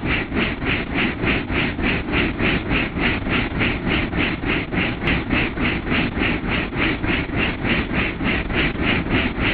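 Helicopter in flight heard from inside the cabin: steady engine and rotor noise beating about four to five times a second.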